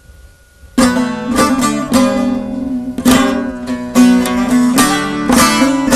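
Bağlama, a Turkish long-necked lute, starts playing a little under a second in: quick plucked notes over a steady low note.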